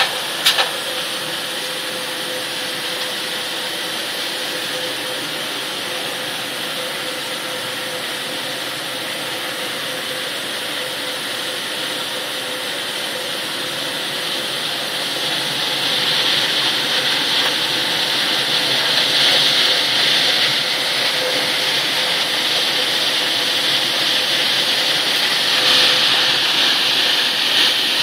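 Steady running noise of a steamed-sorghum processing line, with steamed sorghum pouring out onto a conveyor. There are a couple of sharp clicks right at the start, and a hissing noise grows louder about halfway through.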